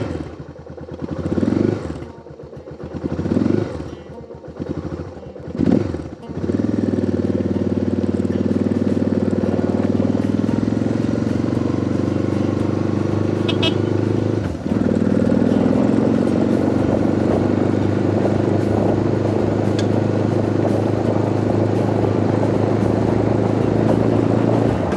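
Motorcycle engine pulling away: three short swells in the first six seconds, then running steadily under way, with one brief dip in the sound just past the halfway point.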